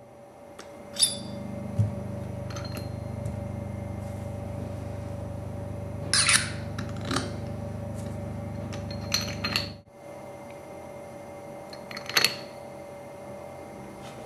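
Steel parts of a workholding mandrel clinking and clicking as they are handled and fitted together: several sharp metallic knocks with brief ringing, over a steady low hum.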